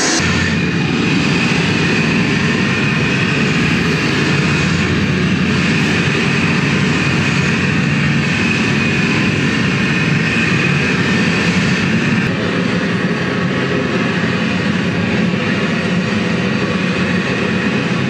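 Construction-site noise of jackhammers and grinders played back over loudspeakers: a loud, steady mechanical din with a high grinding whine over it. The sound changes slightly about twelve seconds in.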